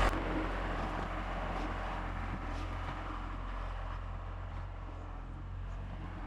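Yanmar C25R crawler dumper's three-cylinder diesel engine running steadily with an even low hum.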